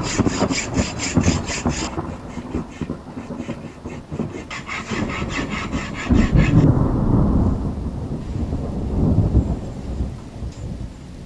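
Metalworking on a steel leaf spring: quick, even rasping strokes of sawing or filing over a low rumble, stopping about two seconds in and starting again for a couple of seconds midway.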